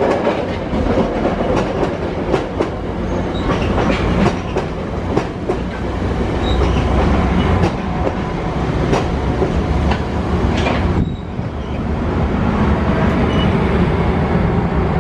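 Virginia Railway Express bilevel passenger cars rolling past close by: a steady rumble of wheels on rail with irregular sharp clacks. The clacking thins out suddenly about eleven seconds in, leaving a steadier rumble and a low hum.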